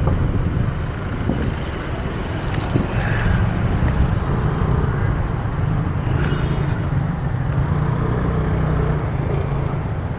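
Street traffic noise: motor vehicles running close by, with a steady low engine drone throughout.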